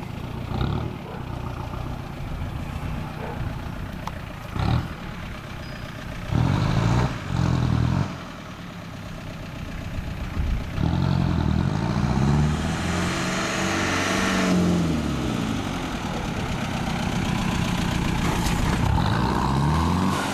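Straight-piped 2.7-litre turbo diesel in a Nissan Hardbody pickup, revved in a few short blips and then driven up close, its note rising and falling as it accelerates and eases off.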